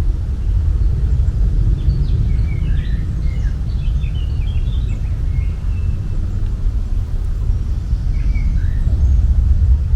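Outdoor ambience with a steady low rumble underneath. Birds chirp over it, in a cluster of short chirps a few seconds in and a couple more near the end.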